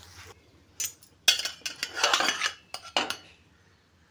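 A faint frying sizzle stops abruptly just after the start, then a steel spoon clanks and scrapes against a steel pot as cooked rice is scooped out into the kadai, in a handful of sharp knocks and one longer scrape.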